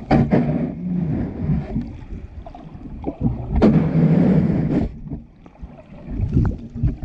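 Shallow-water wave surge over a sandy bottom, heard underwater: muffled, irregular rumbling and sloshing that swells and fades, with a louder surge lasting about a second near the middle and a few short knocks.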